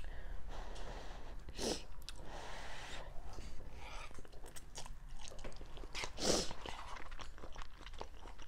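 Close-miked loud eating of instant ramen noodles: wet chewing with mouth smacks and clicks, and noodles slurped in with chopsticks, two louder slurps about 2 and 6 seconds in.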